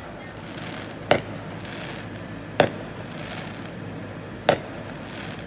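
Fireworks bursting overhead: three sharp bangs about a second and a half to two seconds apart, over steady background noise.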